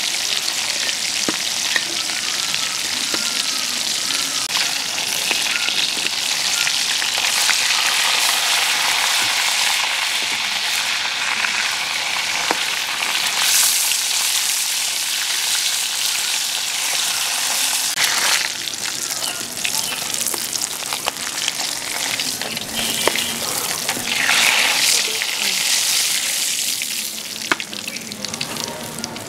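Pieces of climbing perch fish sizzling loudly as they fry in oil in a karahi, with a metal spatula scraping and clicking against the pan as they are turned. The sizzle thins out near the end as the fried fish is lifted out.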